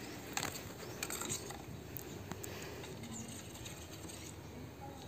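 Metal spoon stirring beaten raw eggs in a small steel bowl, with irregular light clicks and scrapes of spoon against steel.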